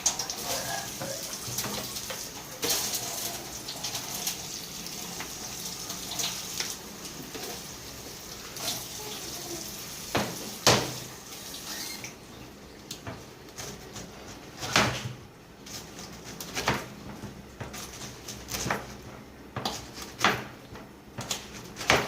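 Tap water running and splashing as a peeled pineapple is rinsed in a sink, with occasional clicks. The water stops about halfway through, and scattered knocks and clatter of handling follow.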